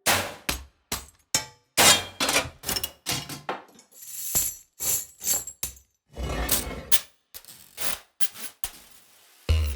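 Sampled rusted-iron percussion: a rapid, irregular run of sharp metal strikes and clangs with short ringing tails, and a brief hissing, scraping shimmer about four seconds in.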